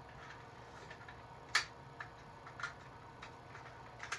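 Faint, scattered clicks and taps at uneven intervals, the sharpest one about one and a half seconds in.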